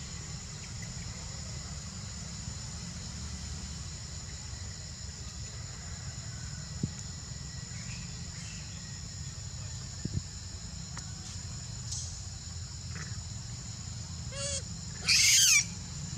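Insects droning steadily on a high pitch. Near the end comes one loud, high, wavering animal squeal lasting about half a second, with a fainter run of short chirps just before it.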